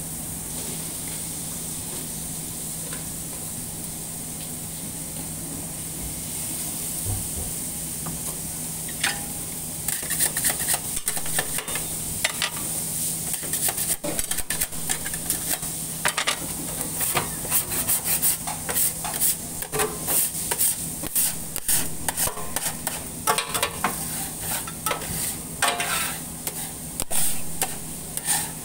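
Metal scraper scraping across a flat-top teppan griddle, rapid rasping and clicking strokes starting about ten seconds in and continuing, as leftover fried rice crumbs are cleared off the steel surface. Under it, a steady hiss and hum.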